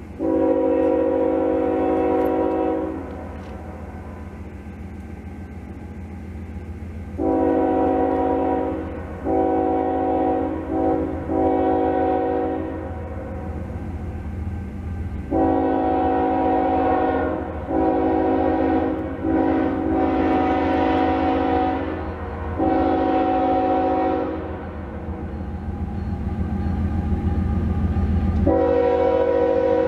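Diesel locomotive's multi-chime air horn sounding about nine blasts, in groups with short gaps, the usual grade-crossing warning as the train approaches. Under the horn the locomotive's low rumble grows louder toward the end.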